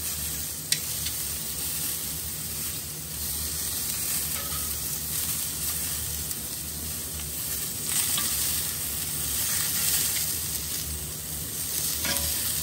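King oyster mushroom halves sizzling in oil on a hot ridged griddle pan while they are turned over with metal tongs; a steady frying hiss, with a single sharp click a little under a second in.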